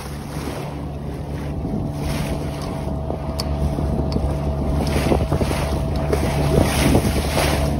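A sailboat's motor running steadily as the boat motors through choppy water with its sails down, with wind buffeting the microphone and water splashing against the hull.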